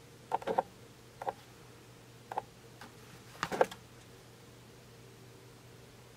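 Plastic and foam slide sandals being handled, giving a handful of short taps and clicks over the first four seconds, the loudest about three and a half seconds in.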